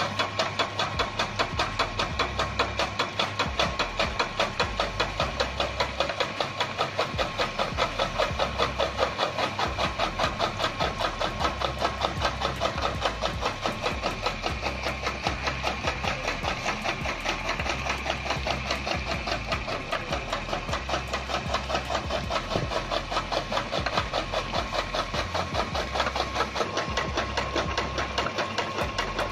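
An electric-motor-driven chaff cutter running and chopping green fodder, with a fast, even rhythm of about four to five cuts a second over a steady motor whine.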